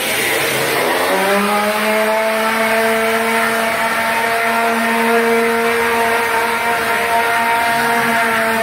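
The motor of a BS40 combined work machine spins up about a second in and settles into a steady whine. It runs over a constant hiss as the machine sprays mortar at the wall.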